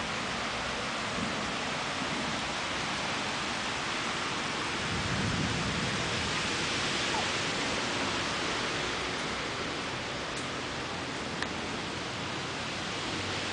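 Steady rain, with a low rumble of thunder swelling about five seconds in.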